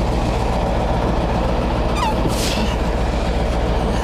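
Scania 143M truck's V8 diesel engine running steadily while its loader crane is being worked, with a short burst of hiss about two and a half seconds in.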